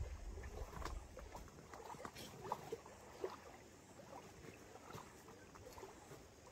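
Small waves lapping gently at a pebble shore, with faint scattered trickles and clicks. Low wind rumble on the microphone in the first second and a half.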